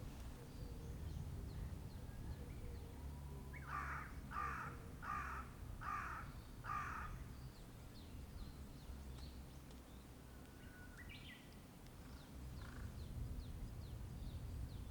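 A crow cawing five times in a row, starting about four seconds in, over faint chirps of small birds. A steady low rumble of road traffic runs underneath.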